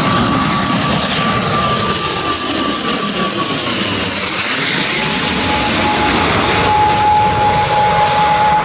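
ATR twin-turboprop airliner on final approach passing low overhead: a loud, steady drone of engines and propellers with a high whine that drops in pitch about four seconds in as the aircraft goes by.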